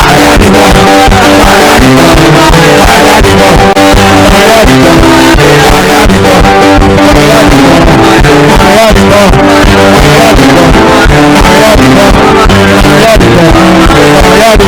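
Loud live band music with strummed and plucked guitars, bass and a steady beat, with faint singing.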